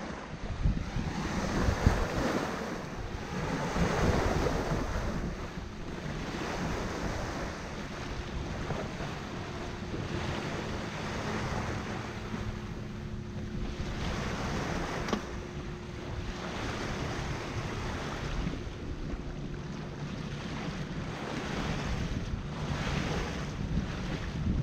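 Bow wave and water rushing and splashing along the hull of a Hallberg-Rassy 54 sailing yacht under sail at about 6 knots, surging louder a few times in the first few seconds. Wind buffets the microphone throughout.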